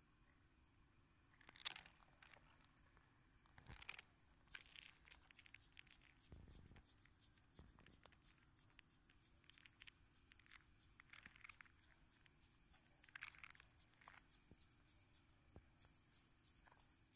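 Peacock butterfly flicking its wings open and shut, making dry rasping hisses and crackles, the loudest about two, four and thirteen seconds in, between runs of fine rapid clicks. This wing-flicking hiss is the butterfly's defensive display when disturbed.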